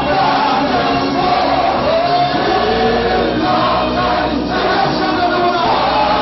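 A church congregation singing a gospel worship song together, many voices at once over music, loud and steady.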